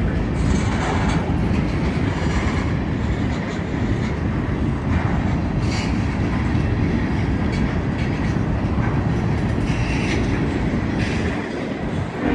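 A BNSF freight train rolling past with a steady rumble, its wheels clicking over the rail joints every so often.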